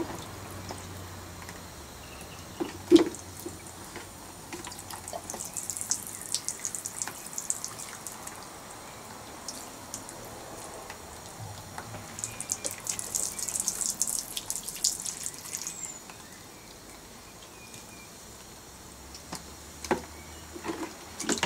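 Water splashing and trickling in a plastic bucket as a small child scoops and pours with a plastic toy watering can, in two spells of a few seconds each. A single sharp knock about three seconds in is the loudest sound.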